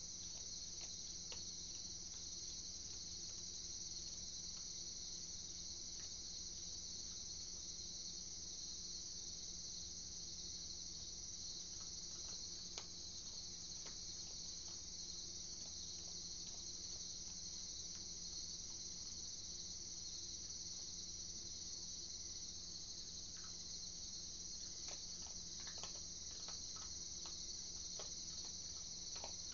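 Night chorus of crickets, a steady high trill throughout, with a few faint scattered clicks, more of them near the end.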